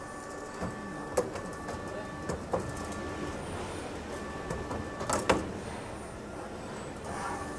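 Automatic CNC tube bending machine running through a bend cycle: a steady motor whine and hum as the bending head swings, with several sharp clacks from its clamps and dies, the loudest about five seconds in.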